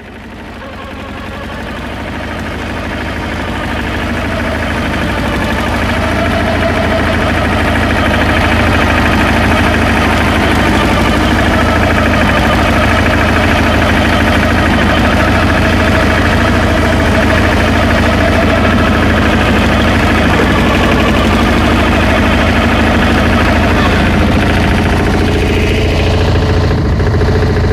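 Nibbi MAK17 walking tractor's 14 hp engine running steadily, driving a Belloni MTP 700 flail shredder through meadow grass. The sound rises in level over the first several seconds, then holds steady.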